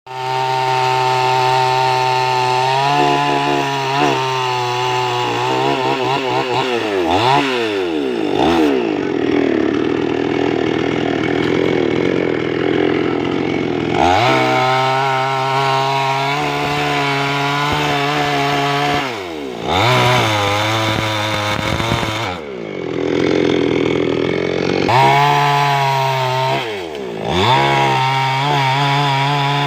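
Chainsaw cutting a tree: the engine runs at a low speed, then revs up and holds a high, steady pitch through two long cuts, about nine seconds in and again past twenty seconds. Between cuts its pitch falls and climbs again in quick sweeps.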